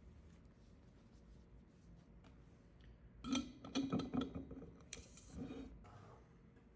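Objects being handled indoors: a quick run of clicks and knocks about halfway through, then a short rustle.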